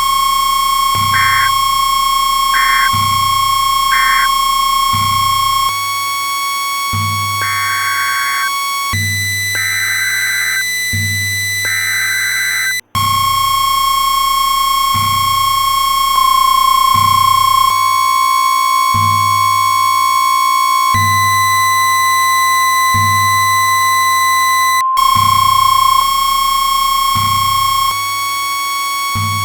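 Synthesized electronic music: sustained high tones that change pitch every few seconds over a low bass pulse about every second and a quarter. Short chirping blips sound in the first dozen seconds, and the music cuts out for an instant about 13 seconds in.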